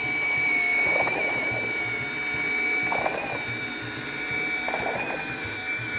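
Electric drill driving a homemade boat propeller, running at a steady high speed with a steady high whine after spinning up just before. Short rushes of noise come about every two seconds.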